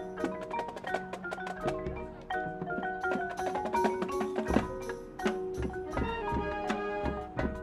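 Marching band music carried by the front ensemble's mallet keyboards: quick, ringing struck notes over a held tone, with scattered low drum hits.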